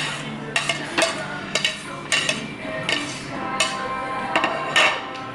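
Cutlery clinking and scraping on plates while eating, a dozen or so irregular clicks, with music playing underneath.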